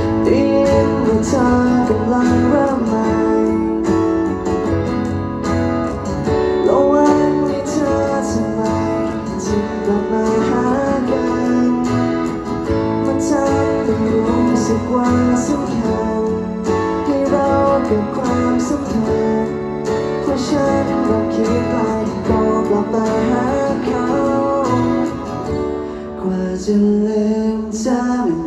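Live band playing a song through the stage sound system, with guitars and a singing voice. The sound starts suddenly at the beginning.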